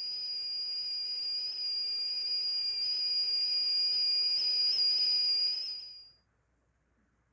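A steady high-pitched ringing tone over a faint hiss, swelling slowly, then fading out about six seconds in.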